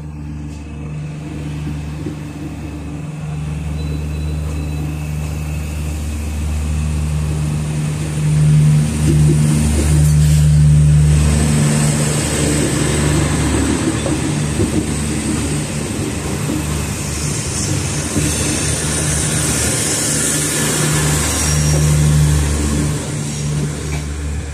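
Diesel multiple-unit train pulling out of a station, its engine holding a steady low hum that grows louder about eight seconds in as it accelerates away. A high hiss of running gear rises over it in the second half.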